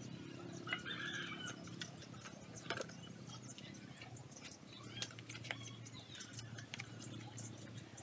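Banana leaves rustling and crackling as they are handled and folded into a parcel, with scattered light clicks. A short chirp-like call about a second in, over a steady low hum.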